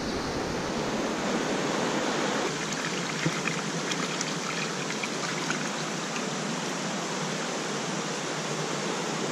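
Steady rush of water from a rocky stream running over small cascades. About two and a half seconds in, the sound changes to water pouring from a pipe spout and splashing into a shallow pool, with a few faint splashing ticks.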